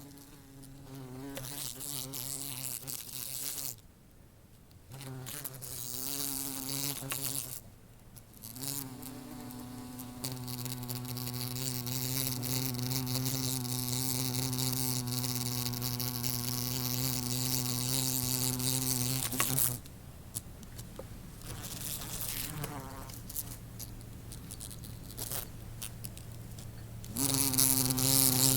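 A swarm of bees buzzing, the hum swelling and fading as bees pass close. It drops out briefly twice in the first several seconds. It fades to a faint hiss for several seconds after the middle, then comes back loud near the end.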